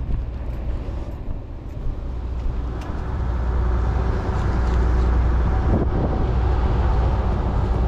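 A steady low engine drone, growing louder about three seconds in.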